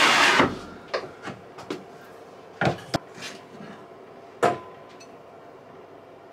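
A wooden drawer scraping as it slides out of a cabinet, then a series of knocks and clatters as kitchenware is handled. About four seconds in, a stainless steel bowl knocks and rings briefly.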